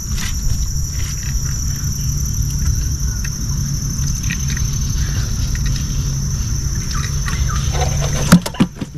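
Steady, high-pitched chorus of insects from the riverside forest, over a steady low rumble. A sharp knock sounds near the end.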